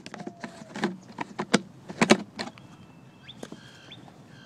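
A quick, irregular run of sharp clicks and crackles over the first two and a half seconds, then a bird chirping in short repeated notes.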